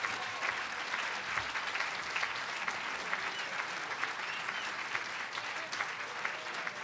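An audience applauding steadily: a dense, even patter of many hands clapping.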